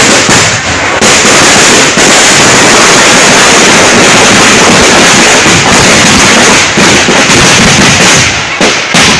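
A rapid barrage of firecrackers going off. After a few separate bangs, the bangs come so fast from about a second in that they merge into one continuous loud crackle, and they break up into separate bangs again near the end.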